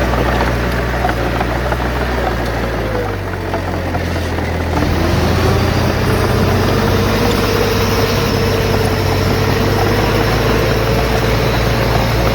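Heavy diesel engine of earthmoving machinery running steadily. About four seconds in it dips briefly, then its pitch rises and it holds at higher revs under working load.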